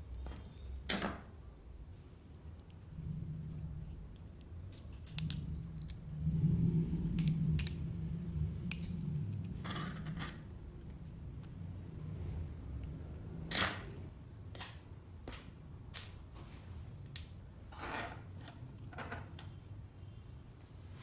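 Small clicks, taps and scrapes of laser-cut MDF pieces, a metal screw and nut being handled and fitted together, scattered irregularly, with a low hum for several seconds in the middle.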